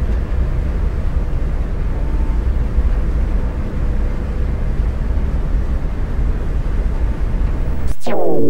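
Steady low engine rumble with a rushing noise over it, as heard inside the cabin of an SR.N6 hovercraft under way. About eight seconds in, synthesizer music comes in with a sweeping tone and takes over.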